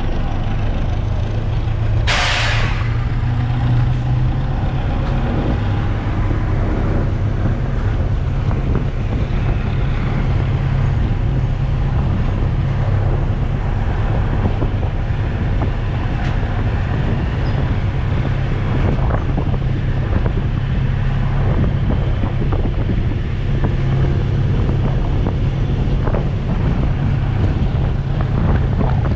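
A locomotive runs with a steady low hum as it pulls the train out of the station. About two seconds in comes a short, loud hiss of air, like a brake release. Scattered faint knocks follow as the train picks up speed.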